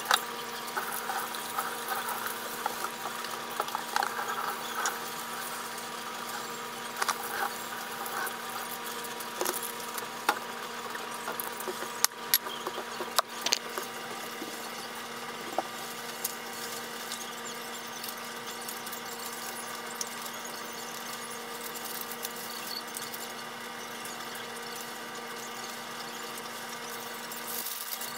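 Kitchen tap running into a steel sink with dishes being rinsed and handled, then a few sharp clicks and knocks of items set down on a countertop. A steady high whine runs underneath throughout.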